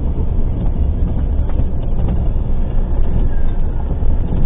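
Steady low rumble of a moving vehicle's engine and road noise heard from inside the cab, with a few faint ticks.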